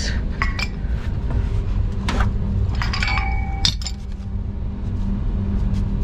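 Metal hand tools and pipe fittings clinking and clanking together, several knocks with short metallic ringing, over a steady low machinery hum.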